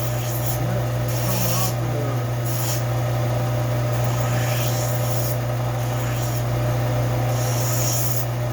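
Steel adze blade being rubbed back and forth by hand on an abrasive to clean off rust and hone it, in uneven scraping strokes, over a steady low hum.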